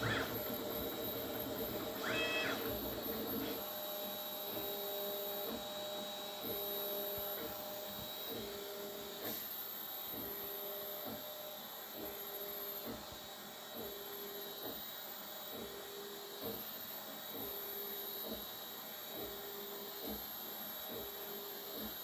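3D printer printing: its stepper motors whine in short, evenly spaced moves about once a second over a steady faint hum.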